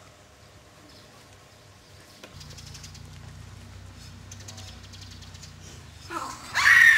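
Faint background with a low steady hum starting a couple of seconds in, then a loud, high-pitched human voice crying out near the end.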